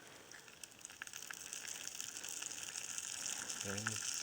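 Sausages frying in hot oil, a steady sizzle with fine crackling pops that grows louder. A brief voice sounds near the end.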